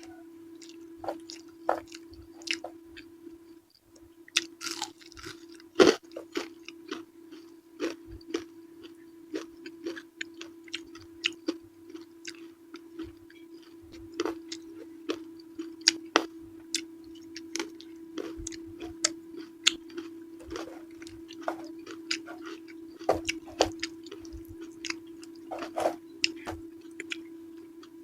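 Close-miked eating: wet chewing, biting and mouth smacks on purple eggplant with chili sambal, coming irregularly several times a second. A steady low hum runs underneath and drops out briefly about four seconds in.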